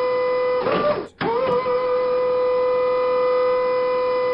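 A long, steady horn-like tone held for several seconds, with a brief wobble in pitch and a short dropout about a second in.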